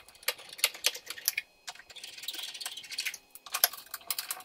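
Small screws and a Phillips screwdriver clicking against a Jeep Wrangler YJ's metal headlight ring as the screws are put back in. Irregular quick clicks, with a short rasping stretch about two seconds in.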